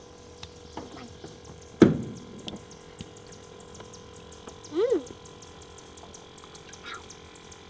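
Quiet river ambience with faint fast ticking throughout. A single sharp knock about two seconds in is the loudest sound, and a short call rises and falls in pitch about five seconds in.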